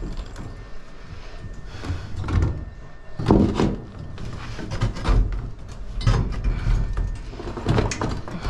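A pry bar levering steel reinforcement up off plywood formwork, making irregular scrapes and knocks of metal on metal and wood. The loudest clatters come about three seconds in and again near the end.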